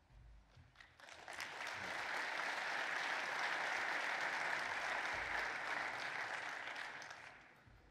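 Audience applause from a seated crowd, starting about a second in, swelling quickly, holding steady, then dying away near the end.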